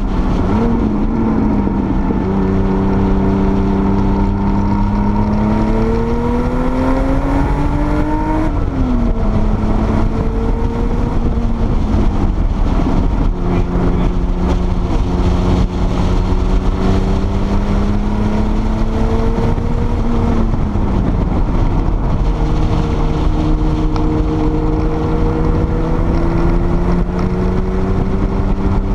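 Porsche 930 Turbo's air-cooled turbocharged flat-six heard from inside the car while lapping a race track. The engine note climbs steadily under acceleration and drops sharply twice, about eight seconds in and again about twenty seconds in, over steady road and wind noise.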